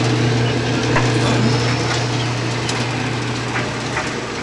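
Steady low mechanical hum, with a few short light clicks and taps over it.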